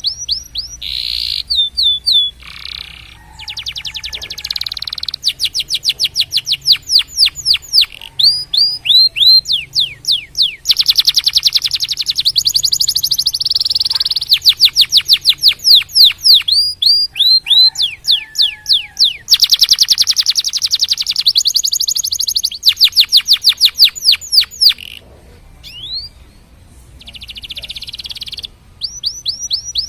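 Domestic canary song: long, loud phrases of rapidly repeated sweeping notes, each trill held for a second or two before switching to a faster or slower roll, with a short break a little before the end.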